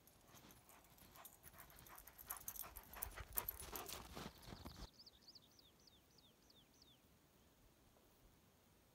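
Footsteps crunching in snow, a dense run of crunches that stops abruptly about five seconds in. A rapid series of about nine high chirps, each falling in pitch, follows over the next two seconds.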